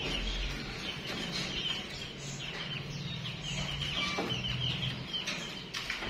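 Background calls and chirps of many caged birds in a bird shop, over a low steady hum.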